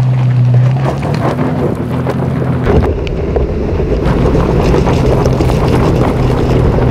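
Toyota 4Runner TRD Pro's 4.0-litre V6 pulling steadily up a loose gravel climb, with tyres crunching over stones. About three seconds in, the sound changes to a close, dense rumble of the front tyre rolling over gravel, with wind buffeting the microphone.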